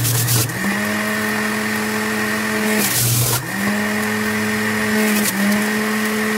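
Power XL centrifugal juicer motor running with a steady hum while carrots are pushed down the chute. Right at the start and again about three seconds in, the hum drops in pitch with a brief grinding burst as the carrot is shredded, then speeds back up. A smaller dip comes about five seconds in.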